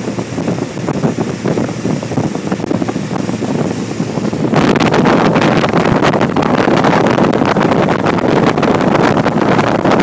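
Small motorboat under way at speed: engine and water noise under heavy wind buffeting on the microphone, which turns louder and rougher about four and a half seconds in.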